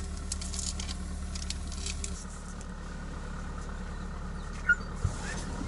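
Off-road vehicle's engine idling with a steady low hum, easing slightly about two seconds in; a single sharp click near the end.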